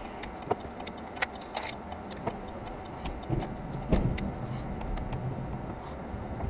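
Snow-plow truck running, heard from inside the cab: a steady low engine rumble with scattered clicks and rattles and a thump about four seconds in, after which the rumble grows stronger.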